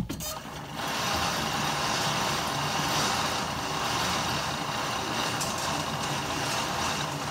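Motorised target carrier of an indoor range running steadily as it reels the paper target back down the lane. The echo of a pistol shot dies away at the very start.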